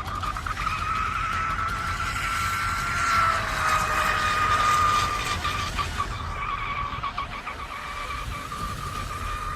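Scorpion rigger RC speedboat running flat out, giving a steady high whine. The whine grows louder for a couple of seconds near the middle, and its pitch drops slightly as the boat passes closest. It is high-pitched enough that the driver likens it to a rocket.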